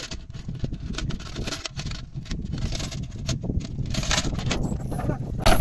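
Steel chain links clinking and rattling against an aluminium bowl as the chain is handled, with a couple of louder clinks about four seconds in and near the end, over a low wind rumble on the microphone.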